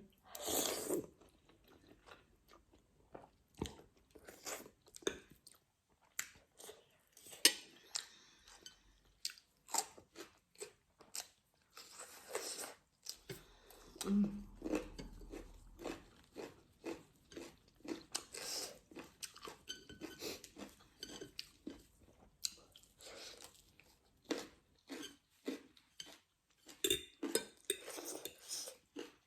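Close-up eating sounds: chewing and crunching, with scattered light clicks and short rustling bursts throughout.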